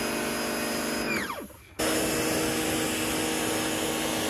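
Electric pressure washer's motor running with water spraying into an engine bay. About a second in, the trigger is let go and the motor winds down in pitch. It starts again abruptly just under two seconds in and runs steadily until it begins to wind down again near the end.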